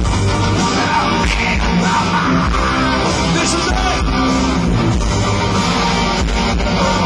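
Hard rock band playing loud and live, with electric guitar and drums, heard from the audience.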